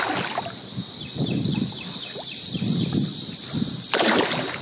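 A hooked fish thrashing and splashing at the water's surface beside a kayak, in irregular bursts, with one sharp sound about four seconds in.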